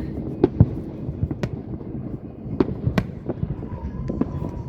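Fireworks exploding: sharp bangs at irregular intervals, one every half second to a second, over a continuous low rumble of further bursts. A faint steady whistle comes in near the end.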